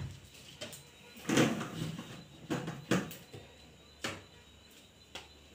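A thump as someone steps up onto a plastic stool, followed by a rustle about a second in and a few scattered knocks and bumps from handling a balloon while standing on the stool.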